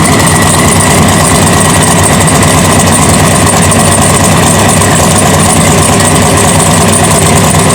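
A car engine running loud and steady close by, with no revving or change in pitch.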